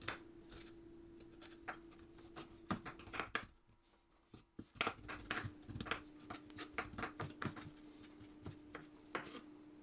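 Knife blade chopping garlic cloves on a wooden cutting board: quick, irregular light taps, with a break of about a second a little past the middle.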